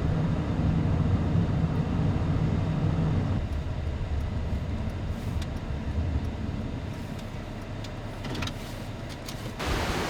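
Road and engine rumble inside a van's cabin while driving. The rumble eases off about a third of the way in as the van slows, and a few light clicks follow. Near the end, wind and the surf of a choppy lake suddenly take over.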